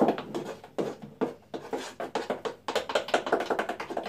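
Silicone spatula stirring thick, sticky chocolate brownie batter in a saucepan: a quick, irregular run of wet clicks and smacks.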